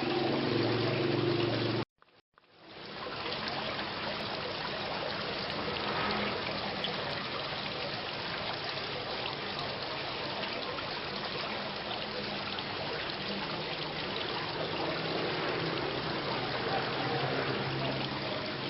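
Steady rain falling, an even hiss of drops. About two seconds in it cuts out suddenly for a moment, then fades back up to the same level.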